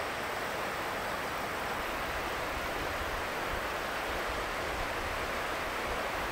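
Steady distant roar of a Boeing 737-700's CFM56 jet engines as the airliner rolls out along the runway after touchdown, mixed with the rush of river rapids. A low rumble grows from about two seconds in.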